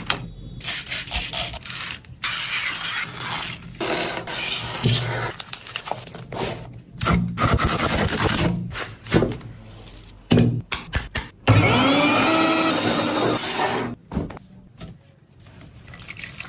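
A run of chopped-together food-prep sounds. Stiff banana leaves crackle as they are handled, and a knife knocks through rolled leaf strips on a wooden board. About eleven seconds in, a small electric motor whirs up, rising in pitch, for a few seconds. It closes with quieter wet squishing as the leaf pulp is squeezed through a cloth.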